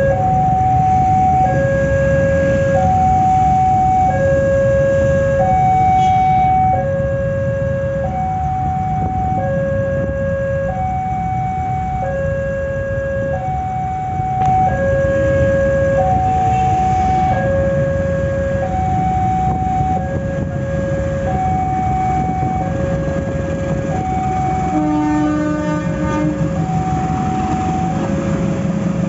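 Level crossing warning alarm sounding an alternating two-tone signal, a higher tone and a lower tone each held about a second and a half, repeating without a break. Under it runs a steady low rumble of engines as a CC203 diesel locomotive approaches the crossing. A brief low tone with a rattle comes in about 25 seconds in.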